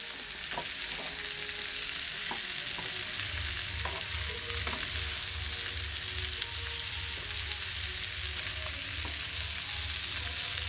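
Sliced green capsicum and carrots sizzling in hot oil in a non-stick frying pan, stirred with a spatula that clicks and scrapes against the pan now and then. A low pulsing hum comes in about three seconds in.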